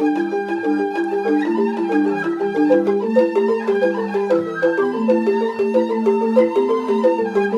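Rindik, the Balinese bamboo xylophone, playing a fast repeating pattern of struck notes, with a held melody line above it.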